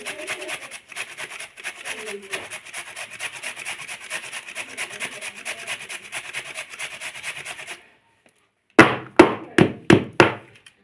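Fast, continuous rubbing or scraping that cuts off abruptly near the end. About a second later come five loud, sharp knocks in quick succession.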